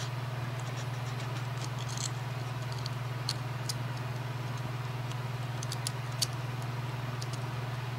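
Small needle file scraping and ticking faintly against a toy train knuckle coupler as it is worked into the trigger-pin opening to clean it out: scattered light scratches and clicks, the clearest about three seconds in and again around six seconds. A steady low electrical hum lies underneath throughout.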